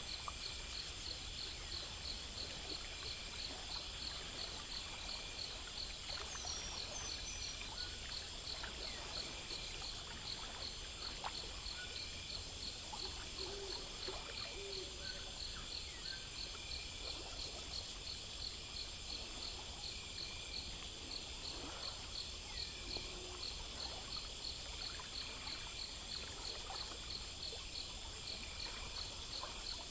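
Night insect chorus: crickets chirping in a steady rhythm, a few chirps a second, over a continuous high-pitched trill.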